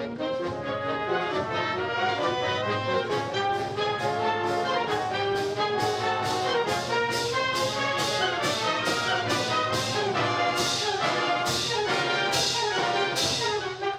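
Youth wind orchestra playing in full ensemble, with clarinets, saxophones, horns and trombones, and a steady percussion beat joining about three seconds in. Heavier crashes come near the end.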